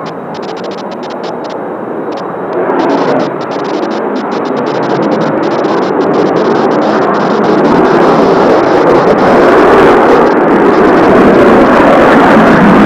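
Jet noise from Blue Impulse Kawasaki T-4 jet trainers, a dense rushing roar that grows steadily louder throughout as the aircraft approach.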